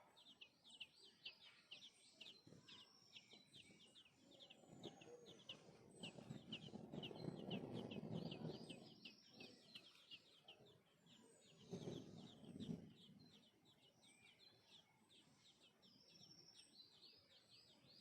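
Sparrows chirping faintly in quick runs of short, high chirps, with a low rumble twice in the middle.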